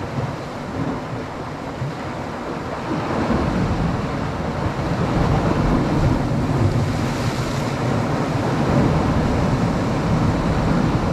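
Sea waves washing against a rocky shore: a steady rush of surf, with some wind on the microphone.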